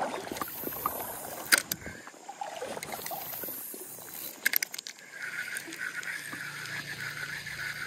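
Fishing tackle being worked over a river: a few sharp clicks from a spinning reel, then from about five seconds in a steady whirr of the reel being cranked on a retrieve, with faint water sloshing.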